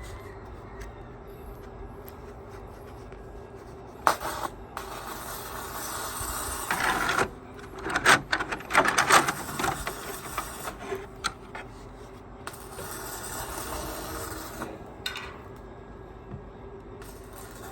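Steelwork on purlins: spells of rasping, crackling metal noise lasting a few seconds each, with a cluster of sharp metallic knocks in the middle, over a steady hum.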